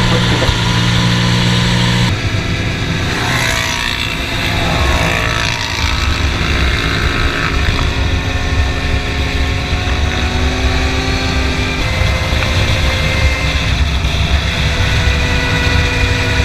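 Can-Am ATV engine running steadily at road cruising speed, with wind rushing over the microphone. About two seconds in the sound changes abruptly to a different quad's engine note.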